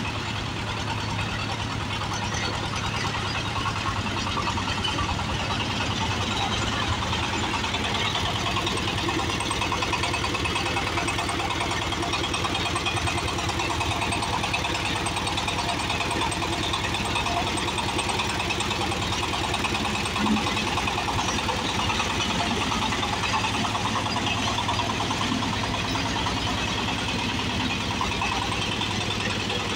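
Mini tractor's small diesel engine running steadily with a rapid, even knocking chug.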